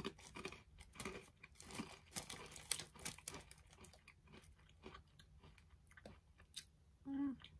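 Vegemite-flavoured Goldfish crackers being chewed: a run of crisp crunches that thins out after about four seconds.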